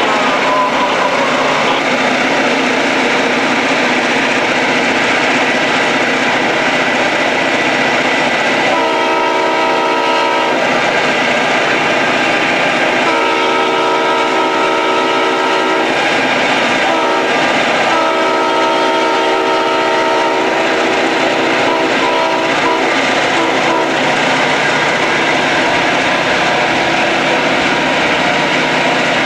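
Diesel locomotive air horn sounding the grade-crossing signal, two long blasts, a short one and a long one, starting about a third of the way in. Under it runs the steady rumble of the passing freight train, mixed with wind and road noise from a car pacing alongside.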